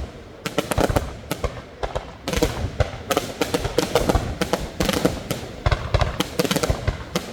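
Fireworks bursting in rapid, irregular succession: many sharp bangs and crackles overlapping, with only brief lulls between volleys.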